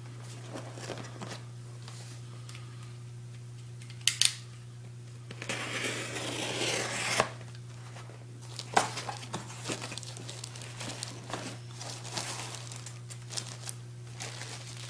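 A cardboard shipping box being opened: the packing tape is cut and torn, with two sharp snaps about four seconds in, a longer tearing stretch a second or two later, then scattered clicks and rustles as the flaps and packing are handled.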